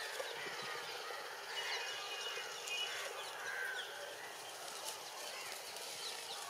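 Many birds chirping in overlapping short calls over a steady background hiss.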